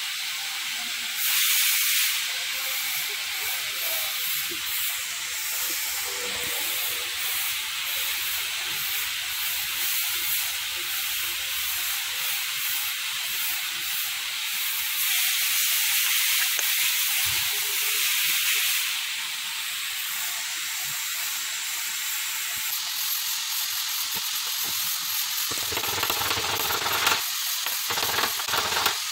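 A steady hiss, louder for a couple of seconds about a second in and again about halfway through. Near the end come a few light metallic clicks as iron round bars are set into aluminium pump bearing blocks.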